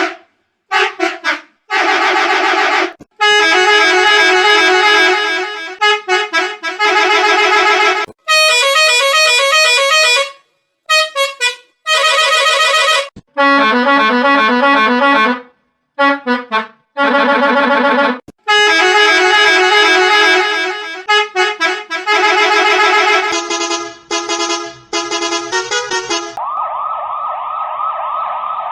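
A rapid series of edited bus horn sound effects: loud multi-note horn blasts and short horn tunes, each cut off abruptly with brief silences between them. Near the end a steadier, wavering siren-like tone takes over.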